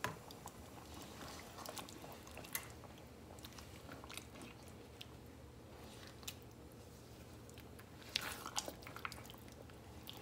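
Silicone spatula stirring chunks of beef in thick rezala gravy in a non-stick pan: faint wet squelching and light scraping, with a few louder scrapes about eight seconds in.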